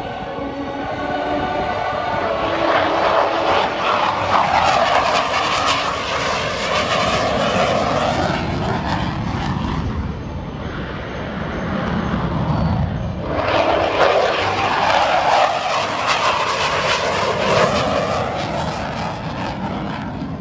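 RCAF CH-148 Cyclone helicopter flying a loud low display, its turbine and rotor noise swelling up twice as it passes and powers up, with a dip in between.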